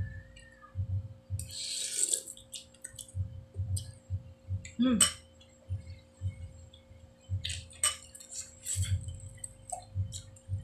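Close-up eating sounds of noodle soup: soft rhythmic chewing throughout, a few short slurps, and light clinks of the spoon against the bowl.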